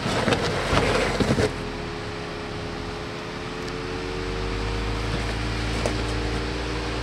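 A Jeep's engine works slowly under load crawling over rock. It starts with a rough, noisy patch and a few sharp knocks in the first second and a half, then settles into a steady run with a faint whine rising slowly in pitch and a low rumble building in the second half.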